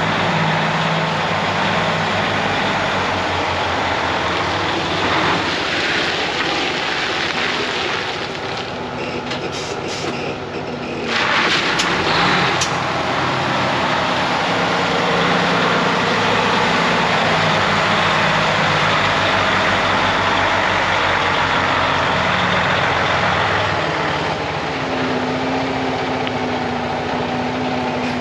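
Heavy diesel truck engine running steadily, with short hissing bursts a little before the middle. Near the end its note steps up to a steady higher hum.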